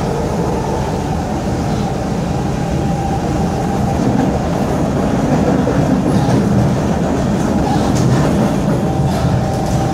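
Kawasaki Heavy Industries C151 metro train running at speed, heard from inside the passenger car: a steady rumble of wheels on the rails, growing a little louder in the second half.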